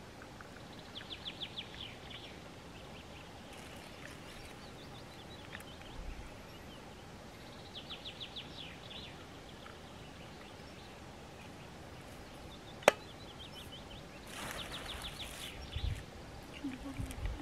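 A small songbird singing a short, rapid trill twice, about seven seconds apart, with fainter notes later. A single sharp click comes about 13 seconds in, followed shortly by a brief rustle.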